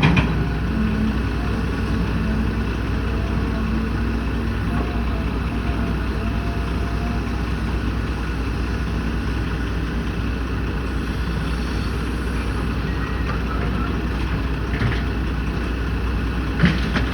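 An engine runs steadily with a low rumble, with a short knock about a second before the end.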